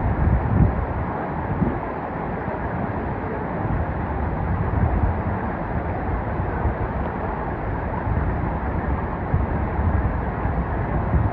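Steady rush of flowing stream water: an even noise with no break, with a few brief low bumps near the start.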